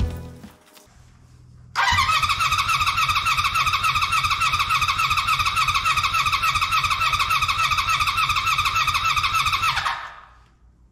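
Electric starter of a Honda 400/4 Super Sport cranking the four-cylinder engine over for about eight seconds, starting about two seconds in. It makes a steady high whine over an even pulsing beat, then stops. The engine is being turned over for a compression test, with a gauge fitted to one cylinder's spark plug hole.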